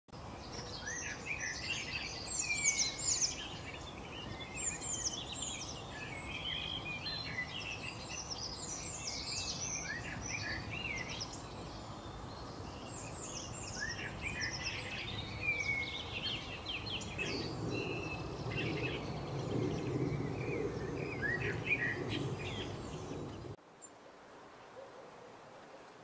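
Several songbirds singing and calling at once, a dense chorus of quick chirps and whistles over a low steady rumble. It cuts off suddenly about 23 seconds in.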